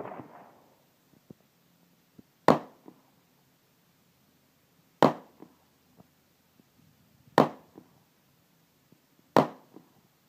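Handgun fired four times, single shots about two to two and a half seconds apart, each a sharp report that dies away within half a second.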